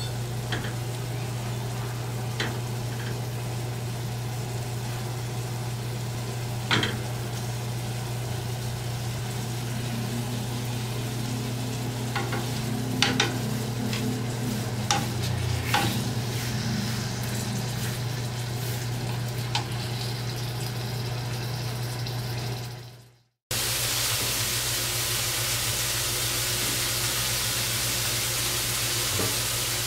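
Chicken breasts sizzling in a grill pan that has been taken off the heat, under a steady low hum. Tongs knock against the pan several times as the pieces are lifted out. About 23 s in, the sizzle cuts off and a steady hiss takes over.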